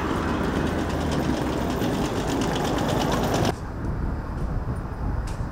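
Steady mechanical noise of aircraft and ground-handling machinery running on an airport apron, with a fast, even ticking rattle over it. It cuts off suddenly about three and a half seconds in, leaving a quieter low hum with a few faint clicks.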